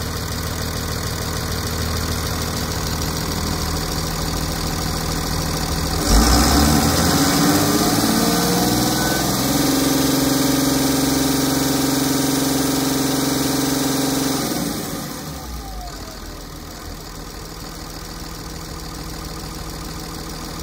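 2006 Cummins ISB 5.9-litre inline-six turbodiesel running at idle. It is revved up sharply about six seconds in, held at a higher steady speed for several seconds, then let fall back to idle around fifteen seconds in.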